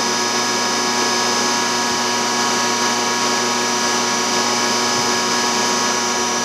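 Diesel injection pump test stand running its high-pressure fuel supply: a steady hum and whine with a hiss of fuel flowing out of the open injector bleeders during high-pressure port-closing (phase) timing of a six-cylinder Bosch inline pump, before the number one plunger cuts off the flow.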